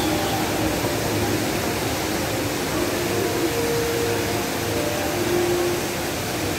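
Steady rushing hiss of Jewel's Rain Vortex, a large indoor waterfall pouring from the roof opening into its basin.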